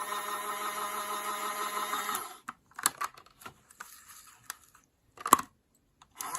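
Small electric motor of a Daiso mini washing machine running with a steady hum, stopping sharply about two seconds in. A few light clicks and one sharper knock follow, and the motor starts again near the end.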